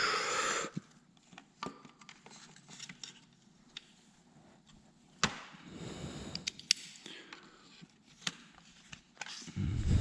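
Scattered sharp clicks and knocks with brief rustling, as of tools and parts being picked up and set down on a workbench, with a short burst of handling noise at the start.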